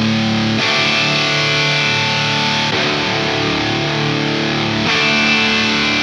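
Electric guitar (ESP LTD NW-44 with a Bare Knuckle Aftermath bridge pickup) played through a Wangs HD tube amp's high-gain drive channel. It plays long, held, distorted chords that change about every two seconds, with no drums.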